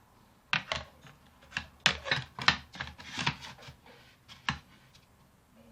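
A string of short, irregular knocks and scrapes of wood against metal: the mini table saw's sliding table and wooden spacer pieces being handled and slid along its metal guide rail.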